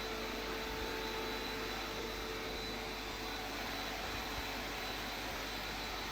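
Vacuum cleaner running steadily while cleaning a carpet: an even rush of air with a constant whine over it.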